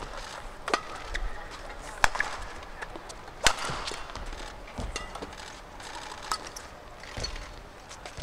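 Badminton rally: rackets striking the shuttlecock about every second and a half, with short shoe squeaks on the court and steady crowd noise from the arena.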